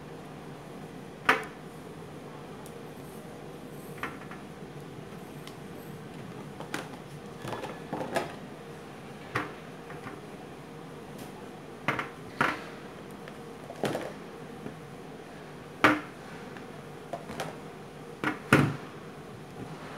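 Whole raw potatoes and carrots set down one at a time on an enamelled steel baking tray: a dozen or so separate knocks and clunks at irregular intervals, over a low steady hum.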